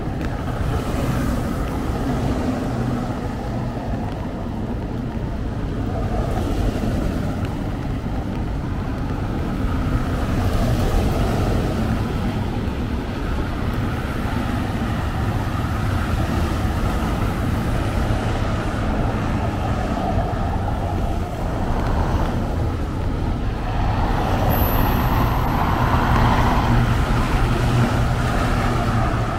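Road traffic on a wet city boulevard: cars and trucks passing steadily, with a constant low rumble and tyre hiss. A short high squeal is heard about three-quarters of the way through.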